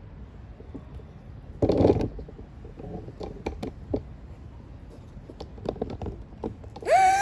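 Faint taps and scratches of a paintbrush working on a small canvas board. A sudden loud bump comes about a second and a half in, and a short high-pitched cry from a small child comes near the end.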